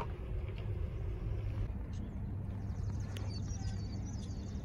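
Steady low rumble of a car engine moving slowly. Several faint, high bird chirps come in over it in the second half.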